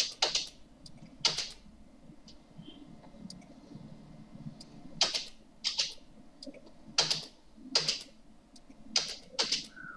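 Computer mouse and keyboard clicks, about eight short, separate clicks spread out with pauses between, some in pairs, as lines are picked and erased in a drawing program.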